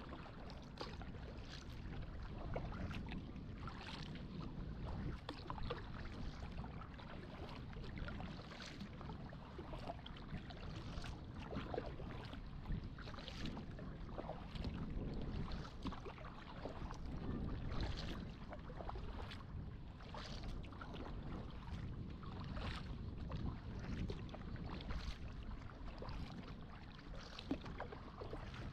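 Kayak paddle strokes dipping and splashing in the water in a steady rhythm, about one every second and a half, over a low rumble of wind on the microphone.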